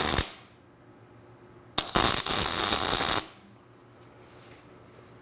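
Wire-feed welding arc crackling as steel braces are tack-welded: one tack ends just after the start, then another about a second and a half long starts about two seconds in.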